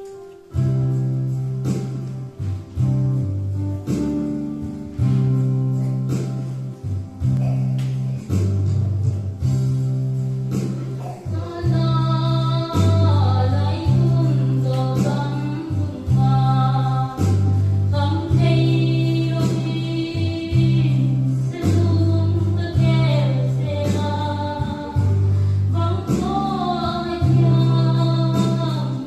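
Gospel song with instrumental backing and a steady, rhythmic bass line; a solo singer's voice comes in about twelve seconds in and carries the melody.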